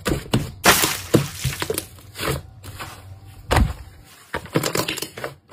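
White slime being squeezed and stretched by hand, giving a series of sticky clicks and pops with short gaps between them. The loudest pop comes under a second in.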